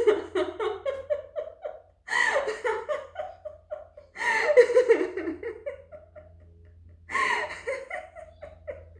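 A woman laughing heartily as a deliberate laughter-exercise laugh, in four bouts. Each bout is a quick run of 'ha's that falls in pitch.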